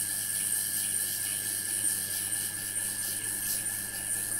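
Hot-air rework station blowing a steady hiss of air with a thin, even whine, heating a surface-mount IC at about 200 °C to soften its solder for removal.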